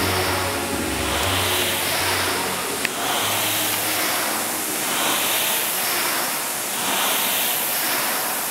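Air-resistance rowing machine's fan flywheel whooshing in rhythmic surges, one rush of air with each pull, about every two seconds, during steady rowing.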